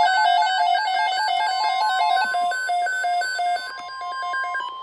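Electronic emergency-alert tones introducing a broadcast weather alert: a rapid run of short beeps hopping between pitches like a fast jingle. A steady tone comes in about halfway and carries on alone near the end.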